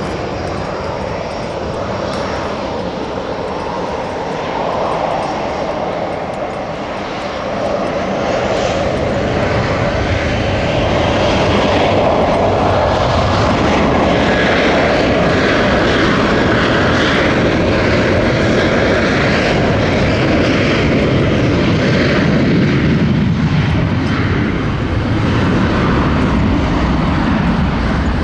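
Boeing 737-700 jet departing, its twin CFM56-7B turbofan engines running loud and steady. The noise swells about a third of the way in and turns deeper and more rumbling near the end.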